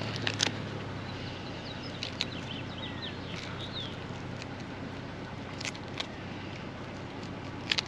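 Birds chirping in short rising and falling notes over a steady low hum, with a few sharp small clicks scattered through.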